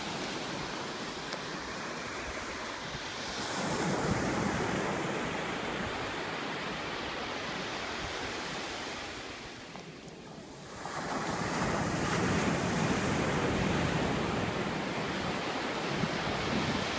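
Sea surf breaking and washing up a sandy beach, swelling and easing with a short lull about ten seconds in, with wind rumbling on the microphone.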